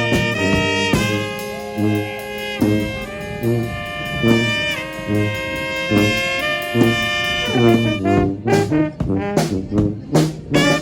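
Four-horn brass band playing a tune: long held chords over a bouncing low bass line, breaking into short, punchy notes near the end.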